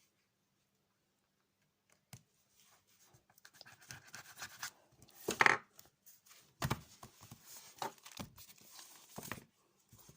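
Paper being handled close up: irregular rustling and crinkling with a few sharp knocks, the loudest crinkle about halfway through.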